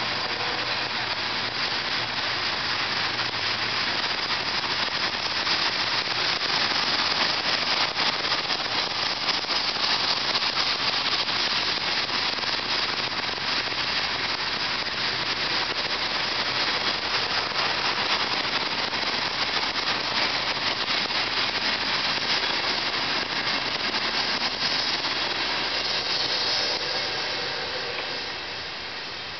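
Freight cars of a CSX rock train rolling past: a steady noise of steel wheels on the rails, with rattling. The sound fades near the end as the last cars go by.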